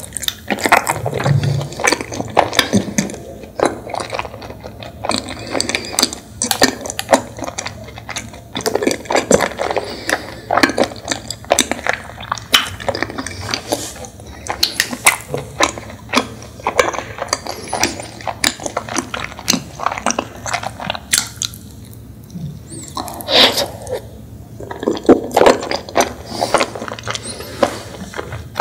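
Chewing of a sticky chocolate-coated rice cake (chocolate chapssaltteok skewer), with many irregular wet mouth clicks and smacks, loudest about three-quarters of the way through.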